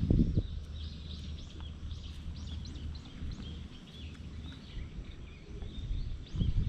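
Birds chirping in the background, many short high calls in quick succession, over a low steady rumble. Louder bursts of low rumbling come at the start and again near the end.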